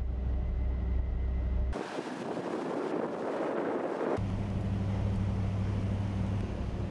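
Steady low hum of a warship's machinery heard on deck, giving way abruptly about two seconds in to a couple of seconds of wind and rushing sea, then switching back to the hum.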